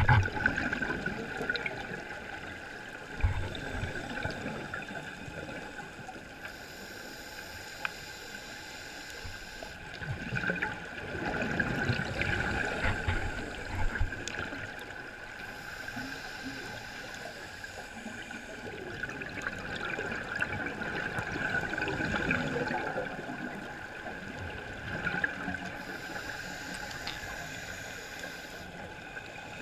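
Scuba regulator breathing recorded underwater: a hiss on each inhale, then a few seconds of bubbling exhaust, about three breaths ten seconds apart.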